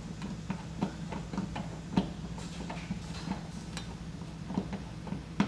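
Hand screwdriver turning a screw through a metal bracket into a plywood wall: irregular light clicks and ticks, a few a second, over a low steady hum.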